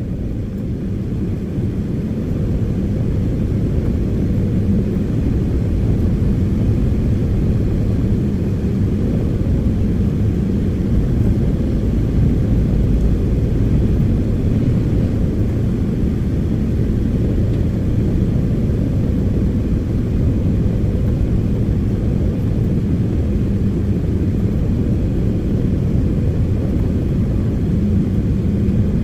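Heavy diesel earthmoving machinery running steadily: a continuous low engine rumble without breaks or sharp impacts.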